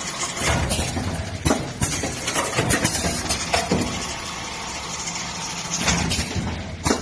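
Industrial orange-peeling machine running: a steady mechanical noise with several sharp knocks.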